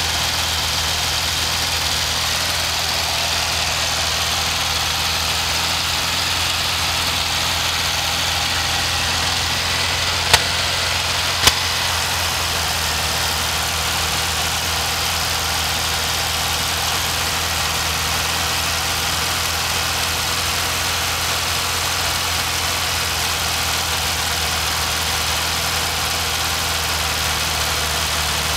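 Volkswagen Beetle's air-cooled flat-four engine idling steadily. Two sharp clicks come about a second apart, around ten seconds in.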